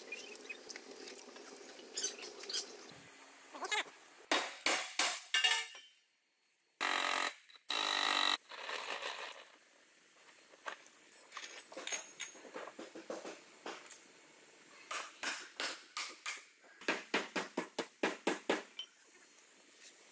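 Irregular knocks and taps, with two short bursts of noise in the middle and a quick run of about three knocks a second near the end.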